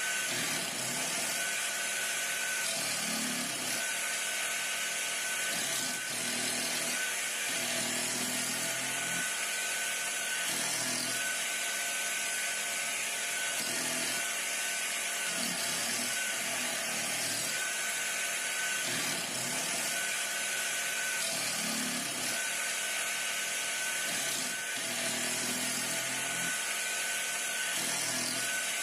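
Motorized coconut shaving machine running steadily, a continuous power-tool whir with a high whine, swelling and easing in a pattern that recurs about every two seconds as it grates coconut.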